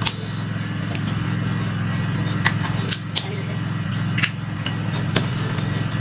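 A handful of short, sharp knocks and clicks from plastic bottles and cups being handled and set down on a glass tabletop, over a steady low hum.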